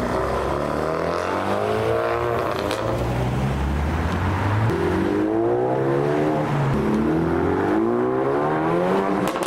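Honda Civic Type R FK8s' turbocharged four-cylinder engines accelerating away one after another, each rising in pitch in turn.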